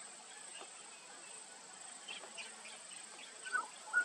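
Steady, high-pitched drone of insects in the bush. Near the end come two or three brief, sharp sounds that are louder than the drone.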